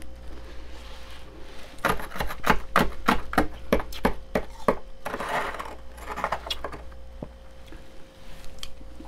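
A metal spoon scraping and scooping the thick frost built up inside a freezer. There is a quick run of short crisp scrapes from about two seconds in, then a longer rasping scrape. A steady faint hum sits underneath.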